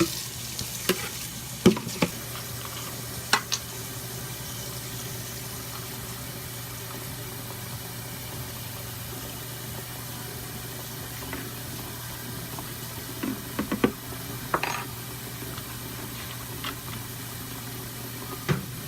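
Water running steadily from a tap, such as when filling a poultry waterer at a sink, with a few sharp clinks and knocks scattered through it.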